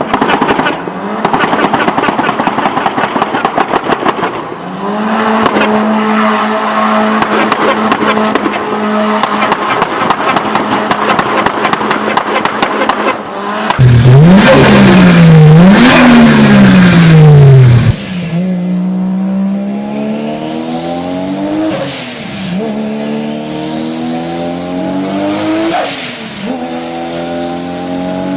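Turbocharged performance car engines in a run of short clips. First comes a fast chattering turbo flutter between throttle blips, then an engine holding a steady note with flutter over it, then several loud revs up and down. Last, a car accelerates hard through the gears: the engine note climbs with a rising turbo whistle and drops sharply at each shift.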